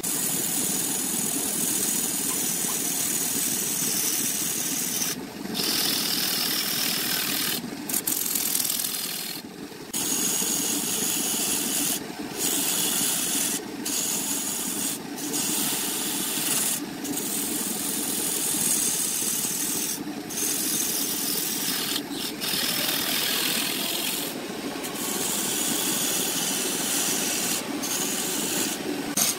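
Wood spinning on a lathe being worked with a hand-held tool: a steady scraping hiss, broken by short gaps every few seconds.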